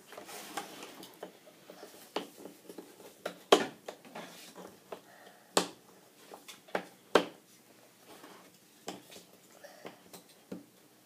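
Jigsaw puzzle pieces being handled and pressed together on a tabletop: scattered light taps and clicks, with three sharper taps spread through the middle.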